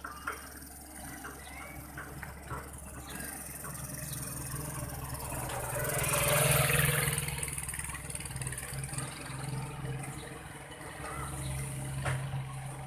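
Excavator engine running steadily, swelling louder for a couple of seconds about six seconds in, then settling back.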